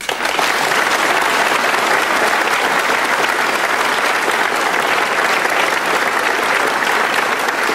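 Studio audience applauding: many people clapping at once in a dense, steady wash of claps.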